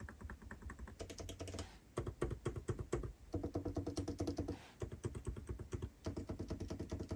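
Typing on two laptop keyboards in short runs of rapid key clicks: the butterfly-mechanism keyboard of a 2019 13-inch MacBook Pro, whose keystrokes are hard and loud, and the scissor-switch keyboard of a 16-inch M2 Pro MacBook Pro, whose keystrokes are softer but crisp.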